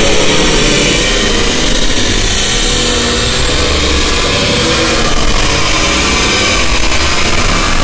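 Very loud, harsh, distorted noise at a steady level, with a low rumble underneath.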